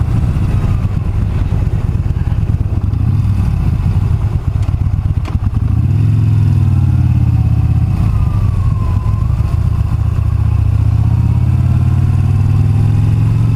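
Yamaha Bolt's air-cooled V-twin engine running, its pitch climbing about six seconds in, easing off near nine seconds and climbing again toward the end.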